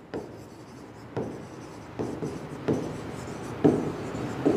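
A pen writing on an interactive smart-board screen: a light scraping as it moves, with about six irregular taps as it lands on the surface for each stroke.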